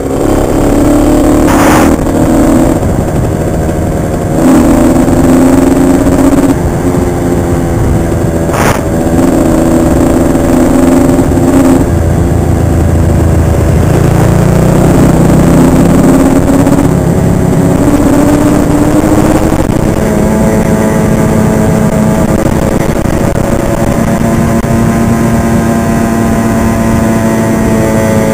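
Honda CR85's 85cc two-stroke single-cylinder engine ridden hard, heard from a head-mounted camera: it revs up in repeated pulls, dropping in pitch between them, then holds a steadier, slowly rising note in the second half. Two sharp knocks come about 2 and 9 seconds in.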